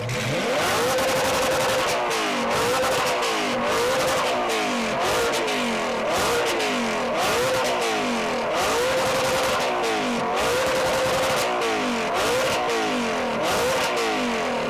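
Audi R8's engine revved hard to full throttle over and over, its pitch climbing and dropping back roughly once a second.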